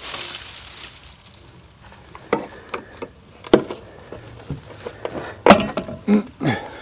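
Dry weeds rustling and crackling against the side of a minivan, then a few sharp metallic clicks and knocks as a screwdriver pries the fuel filler door open.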